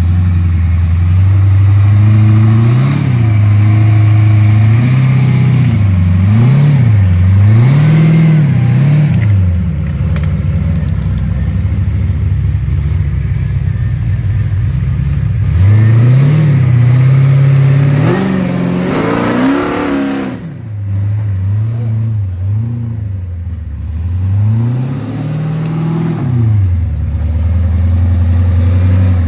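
545-cubic-inch big-block Ford V8 of a rock-crawler buggy under load on a steep dirt climb, its revs rising and falling in repeated blips, with a steadier stretch in the middle and a brief drop about two-thirds of the way through.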